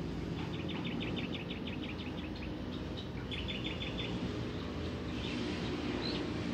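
Small birds chirping: a rapid run of short high chirps, then a quicker cluster of notes and a single chirp near the end, over a steady low outdoor rumble.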